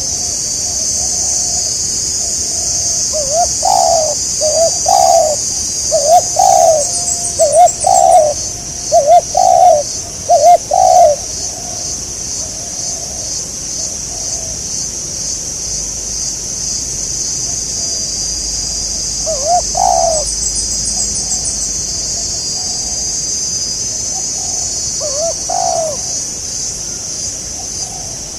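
Spotted doves cooing: a run of repeated coo phrases for several seconds, then a couple more coos later, over a steady high-pitched drone.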